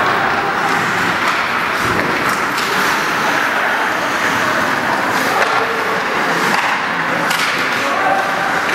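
Ice hockey play on a rink: a steady scraping din of skates on the ice, broken every second or two by sharp clacks of sticks and puck.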